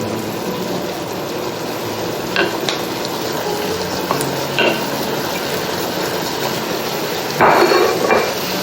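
Ground beef and onions frying in oil in a pan, a steady sizzle, with a few light clicks of a utensil and a louder scrape near the end as the meat is stirred.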